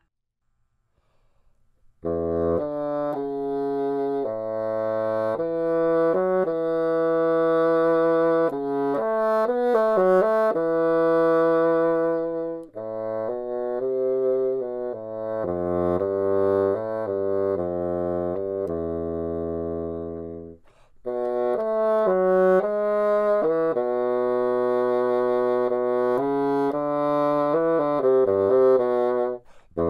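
Solo bassoon playing a slow, lyrical etude: long held notes joined by wide slurred leaps, starting about two seconds in and breaking off briefly twice before a third short gap near the end.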